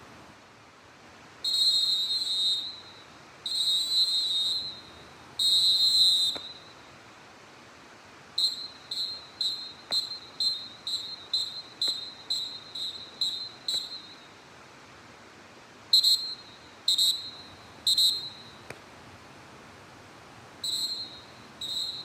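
Fox 40 Classic CMG pealess referee whistle blown hard, with a shrill, steady high pitch and no trill. Three long blasts come first, then a quick run of about a dozen short toots, then three short blasts about a second apart, and two more near the end.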